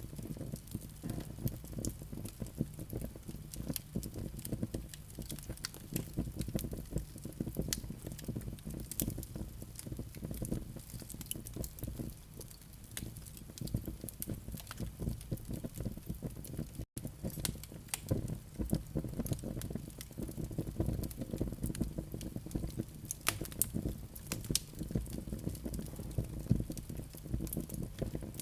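Fire of burning wood and live coals crackling in a fireplace: frequent irregular sharp pops and snaps over a low steady rumble. The sound cuts out for a split second about two-thirds of the way through.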